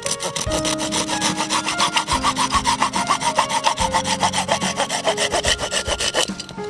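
Hand saw cutting through firewood in fast, even strokes, about eight a second, stopping shortly before the end.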